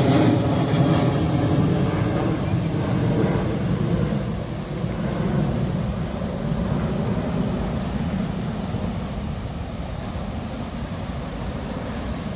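Airliner descending to land, its engine noise a steady drone over a broad rumble, loudest at first and slowly fading as it moves away.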